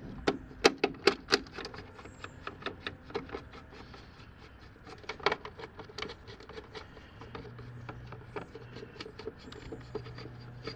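Hard plastic parts of a Polaris Quattro pool cleaner clicking and knocking as its gears and drive-shaft parts are fitted together by hand, with a quick run of sharp clicks about a second in, then scattered lighter clicks and rubbing.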